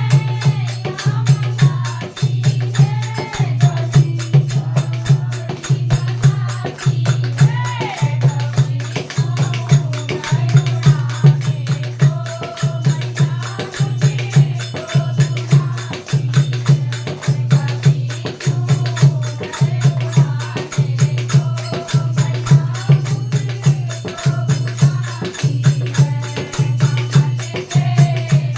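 Hindi devotional bhajan music with a fast, steady drum beat and jingling hand percussion, and a wavering melody over it.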